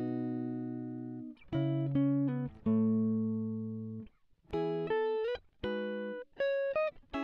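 Guitar music: plucked chords struck one after another, each left to ring and fade, with brief gaps between them.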